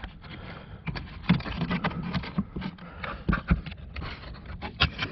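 Irregular clicks, knocks and scrapes of a hand feeling around the plastic blower motor housing and trim panels under a car's dashboard, searching for the blower motor connector.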